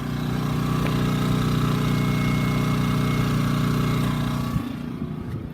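Power It GN-2000 inverter generator's small gasoline engine running at a steady speed, a constant hum. It grows a little louder in the first second and eases off again about four and a half seconds in.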